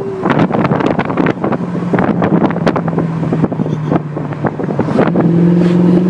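Turbocharged Mercedes-AMG engine under acceleration heard from inside the cabin: a steady low drone that steps up in pitch about five seconds in, with wind noise buffeting the microphone.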